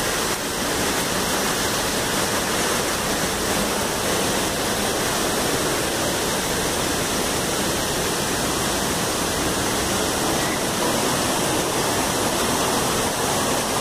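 Pandav Falls, a waterfall dropping about 30 metres into a pool: a steady, even rush of falling water.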